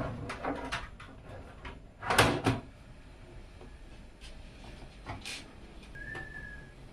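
Clunks and knocks from handling PC case parts, the loudest about two seconds in. A short high steady tone sounds near the end.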